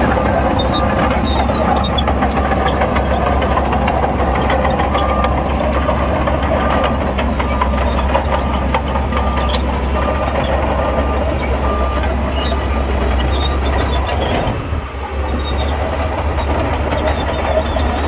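Bulldozer's diesel engine running under load, with its steel tracks clanking, while a reversing alarm beeps about once a second. The beeping stops about three-quarters of the way through, and the engine sound dips briefly soon after.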